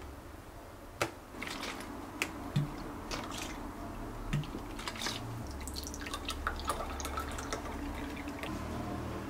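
Sikhye poured from a plastic bottle into a drinking glass: a sharp click about a second in, then a run of crackles and splashes from the thin plastic and the pouring, foaming liquid.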